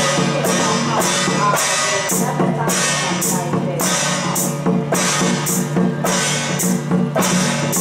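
Procession music: drums and cymbals struck to a steady, quick beat over a sustained low drone.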